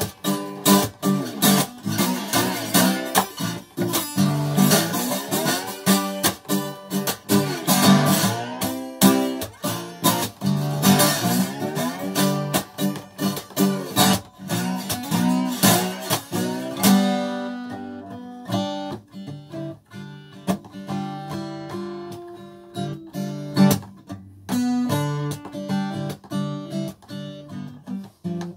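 Acoustic guitar strummed in a dense, steady rhythm. A little past halfway it drops to quieter, sparser picked notes.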